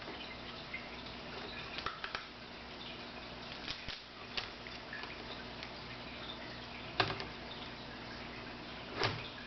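Scattered light clicks and taps of a laptop LCD panel being handled and fitted into its hinge brackets, the sharpest about seven seconds in, over a steady low background hum.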